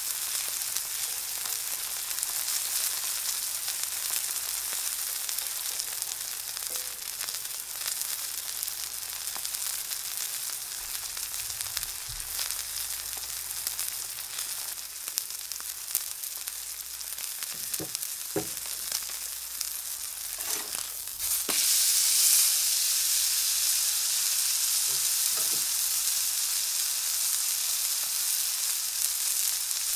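Thick Black Angus ribeye steak searing on a flat steel griddle plate, sizzling steadily in bubbling fat with scattered small pops. The sizzle grows louder a little over two-thirds of the way through.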